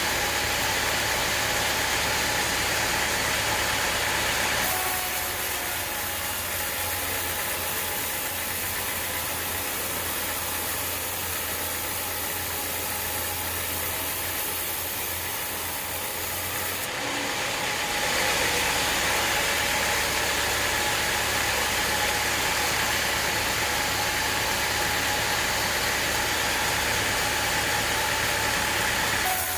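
Sawmill machinery running steadily, an engine-like hum under a broad hiss. Its tone shifts abruptly about five seconds in and again about seventeen seconds in.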